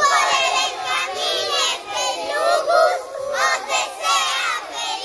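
A group of young children singing together loudly, in phrases broken by short pauses.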